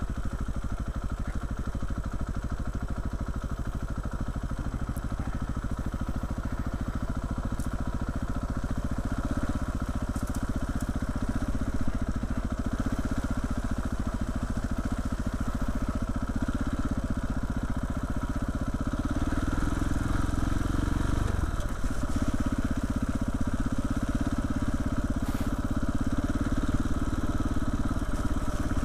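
KTM 690's single-cylinder four-stroke engine running as the motorcycle rides slowly along a muddy, rutted track. The engine note picks up about two-thirds of the way through, with a brief dip shortly after.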